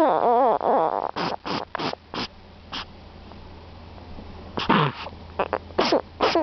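Snoring: a wavering, whistling breath in the first second, then a run of short, sharp breaths over the next two seconds, a pause, and another cluster of short breaths near the end.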